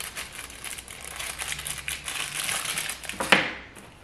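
Thin plastic packaging crinkling and rustling as it is handled, with one sharper, louder crackle a little after three seconds in.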